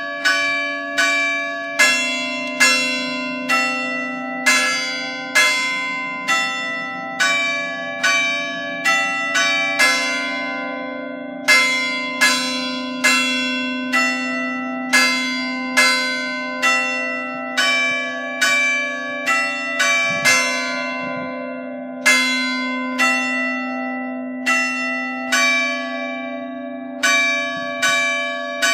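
Church bells of a three-bell Ambrosian peal, cast by Giovanni Battista Mazzola in 1845, swung electrically full circle, with clappers striking about once a second and the strokes overlapping so the ringing never dies away. The smallest bell is out of tune.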